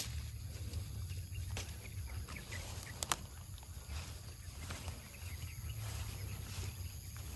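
Outdoor ambience around a herd of cattle: a steady low rumble under faint scattered sounds, with a couple of sharp clicks about three seconds in.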